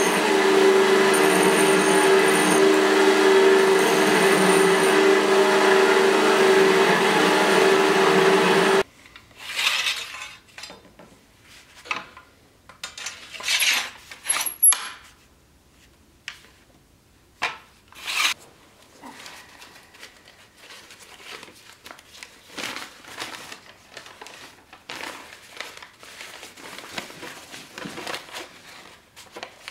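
Belt grinder running steadily with a small steel fitting held against the belt; it cuts off abruptly about nine seconds in. Afterwards only quieter, scattered short rubbing and knocking sounds of wood and metal being handled.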